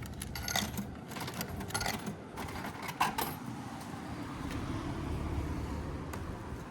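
A quick run of small clicks and rattles, strongest about three seconds in, over a steady low rumble.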